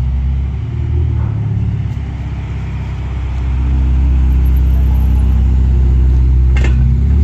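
Sports car engine running at idle with a steady low exhaust note, growing louder about halfway through; a short click near the end.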